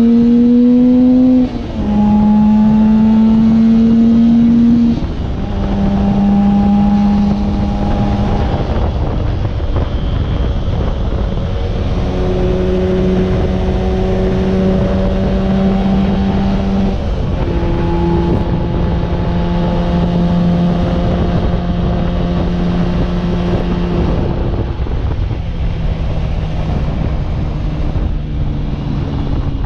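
1966 Suzuki T20 (X-6 Hustler) two-stroke twin running under way: the engine note climbs and then drops sharply about a second and a half in and again around five seconds in as the gears change, then settles to a steady cruise with a few smaller drops in pitch. A steady rush of wind noise runs underneath.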